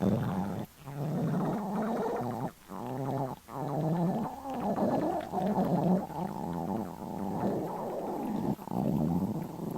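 A hungry person's stomach growling: long gurgling rumbles that waver up and down in pitch, with a few brief breaks.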